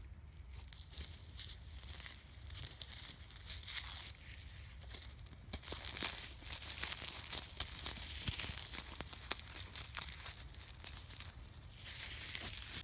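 Dry, stringy tree bark being torn and pulled off a trunk by hand: a dense run of crackling, ripping fibres, busiest through the middle of the stretch.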